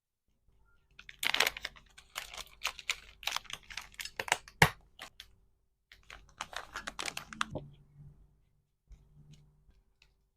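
Packaging being handled: rapid crinkling and clicking of wrapping and small items in two bursts, with one sharp click about four and a half seconds in and a few faint ticks near the end.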